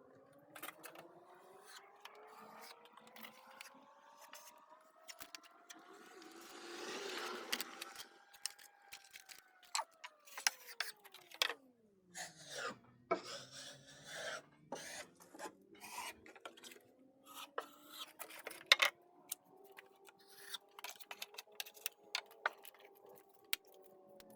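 Irregular scraping, rubbing and light tapping on wood, with a rasping stretch about a quarter of the way in. Under it a faint pitched motor hum slowly rises in pitch, dips steeply about halfway and climbs again.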